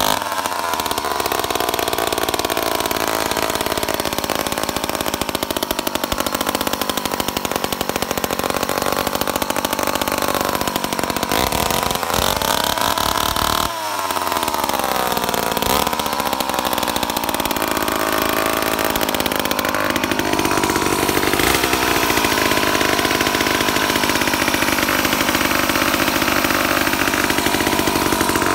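Vintage Homelite C5 two-stroke chainsaw running unloaded, held in the air rather than cutting. Its engine speed rises and falls as the throttle is worked, with a quick rev up and drop about halfway through and another rise a few seconds later.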